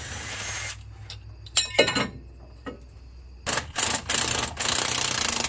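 Impact wrench hammering on a bolt at the front of the engine. It comes in short bursts at the start and a little under two seconds in, then runs for about two seconds near the end.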